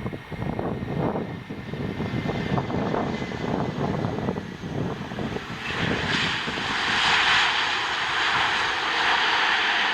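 Airbus A330 jet airliner on landing approach: a low, uneven engine rumble that swells about six seconds in into a loud, steady jet hiss as the aircraft passes close.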